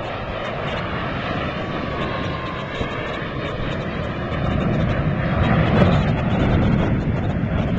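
Jet engine noise from two Blue Angels F/A-18 Hornets flying by in formation: a steady rush that grows louder about halfway through.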